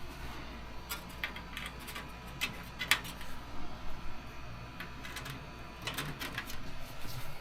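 Scattered light clicks and taps of hand tools and aluminium wing parts being handled, with one sharper click about three seconds in.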